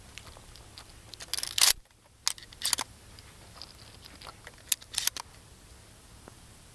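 Handling noise of gear, the shotgun being moved and brought up: sharp clicks and rattles in four short clusters, the loudest about a second and a half in.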